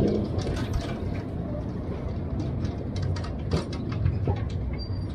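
Narrow-gauge train rolling slowly as it comes to a stop, with a steady low rumble and many sharp clicks and clanks from the wheels and couplings. A brief high squeal sounds near the end.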